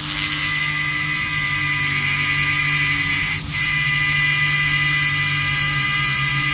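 A high-speed power tool running with a steady, high-pitched whine, dipping briefly about halfway through.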